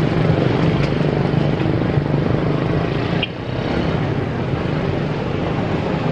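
Street traffic dominated by small motorcycles and scooters running and passing, with a steady engine drone throughout that dips briefly a little past the middle.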